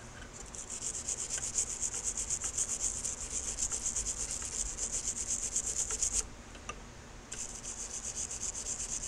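Fine wire brush scrubbed back and forth on the steel trigger guard bow of a Mauser K98K, carding off rust that steaming has converted to a dark oxide. Quick scratchy strokes about five a second, with a pause of about a second just past the middle.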